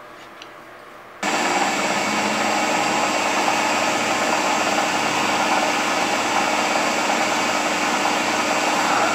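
Wood lathe starting up about a second in and running steadily while a masonry drill bit, held still in a Jacobs chuck in the tailstock, is fed into the spinning end-grain wood blank.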